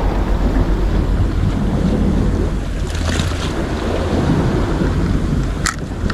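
Wind buffeting the microphone with a steady low rumble, over the wash of sea surf. A short click sounds near the end.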